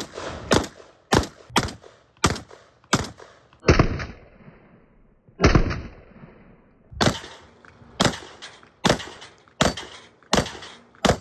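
Beretta 1301 Tactical Marine, a 12-gauge semi-automatic shotgun, fired in quick strings: six fast shots about half a second apart, two single shots, then six more shots about a second apart.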